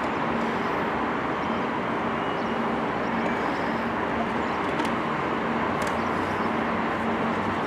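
Steady outdoor background noise with a faint low hum, and two faint clicks about midway.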